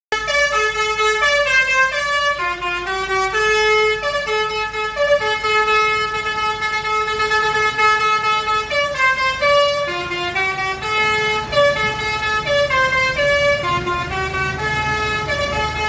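Telolet basuri bus horn playing a tune: a string of pitched notes that step up and down, some short, some held for a few seconds, with a low rumble underneath that grows stronger near the end.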